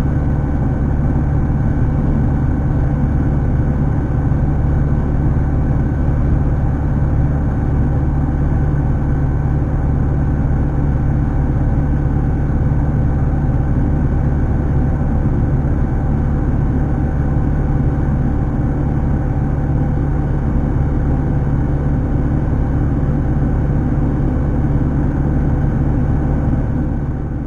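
Tecnam Astore's Rotax 912 flat-four engine and propeller running steadily at low power during the landing rollout, heard from inside the cockpit. The sound fades out near the end.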